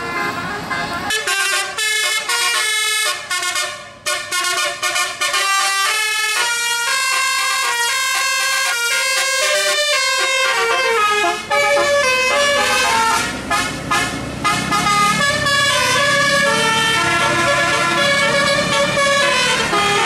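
Tourist bus's roof-mounted telolet musical air horns playing a fast tune of stepping notes, starting about a second in and running on. From about the middle the bus's engine and road noise run beneath the horns.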